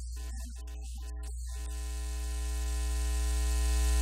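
Electrical mains hum: a strong steady low hum with a stack of steady buzzing overtones above it, growing gradually louder.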